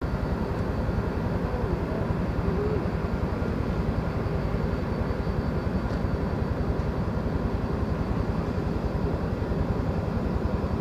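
Boeing 757 twin-engine jetliner on a low flyby toward the listener: a steady, even rumble of its jet engines, with a rapid flutter in the low end.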